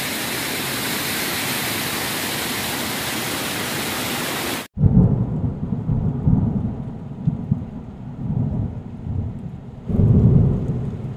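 Steady rush of flowing water that cuts off abruptly after about four and a half seconds. It is followed by low, rolling thunder rumbles that swell and fade, loudest just after the cut and again near the end.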